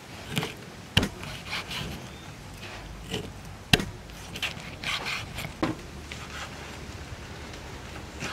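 Kitchen knife chopping an eel into chunks on a wooden chopping board: the blade cuts through the eel's body and knocks on the board. Two sharp chops, about a second in and near four seconds, with softer knocks and slicing sounds between them.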